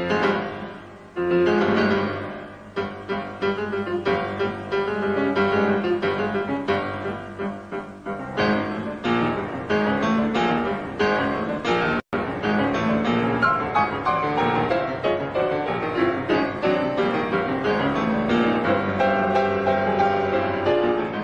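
Solo grand piano playing classical music: a few loud chords left to ring and fade, then a busier passage of quick notes. The sound cuts out for an instant about twelve seconds in.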